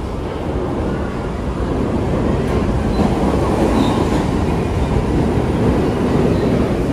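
New York City subway train running through the station, a steady rumble of wheels on rails that grows a little louder about two seconds in, with a faint short squeal near the middle.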